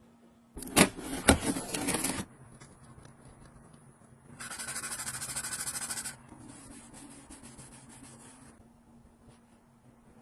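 Objects being handled and rubbed: a burst of rustling with two sharp clicks, then a steady rasping scrape for about two seconds, fading to fainter rubbing.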